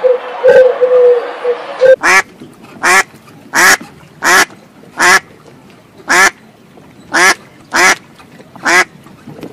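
A duck quacking nine times in a steady series of short quacks, starting about two seconds in after a different steady, pulsing animal call cuts off.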